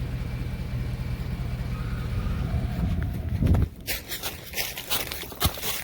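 A vehicle engine runs with a steady low hum, then cuts off abruptly a little past halfway. A string of irregular sharp crackling and rustling noises follows.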